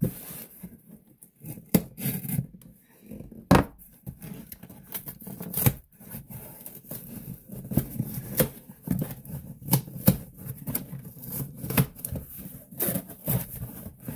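Hands working open a cardboard shipping box: irregular scratching and scraping at the packing tape and cardboard, with many short taps and clicks, and the flaps pulled open near the end.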